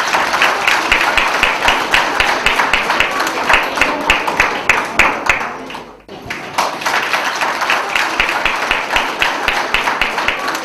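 Audience applauding, a dense patter of many hands clapping that drops out briefly about six seconds in and then carries on.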